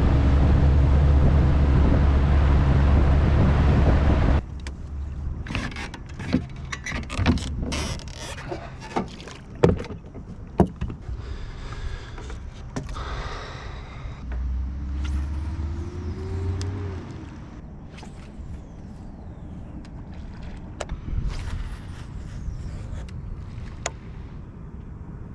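Boat motor running steadily, then cut off suddenly about four seconds in. Scattered clicks and knocks follow.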